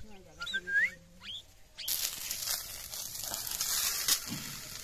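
An oriental magpie-robin whistles a few gliding song notes for a little under two seconds. Then hot oil sizzles steadily in an iron kadai of frying soya chunks, with a few sharp clicks.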